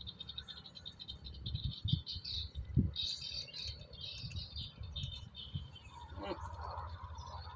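Small birds chirping repeatedly at a high pitch, with a few low thumps about two and three seconds in.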